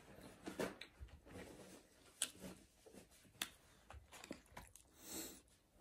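Quiet chewing of fast food, with scattered small mouth clicks and a brief breathy hiss near the end.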